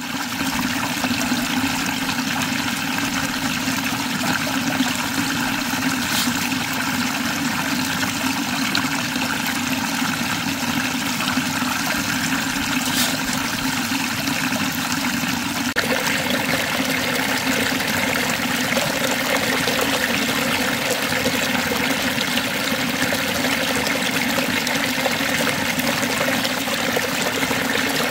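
Water gushing steadily through a small gold sluice box and pouring off its end into a tub as pay dirt is washed through it.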